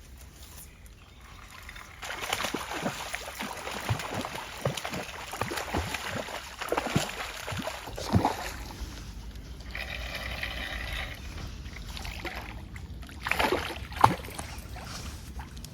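Water splashing and sloshing, with many irregular plops and drips starting about two seconds in and another brief cluster near the end.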